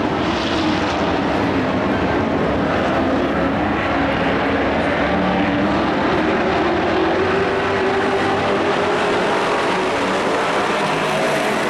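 Engines of several dirt-track race trucks running at speed in a pack: a loud, continuous drone with engine notes slowly shifting in pitch as the trucks come around and pass.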